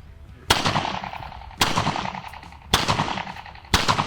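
Pistol shots fired in an even string, four about a second apart, each a sharp crack followed by an echo that dies away, from handloaded cartridges with a tightened crimp.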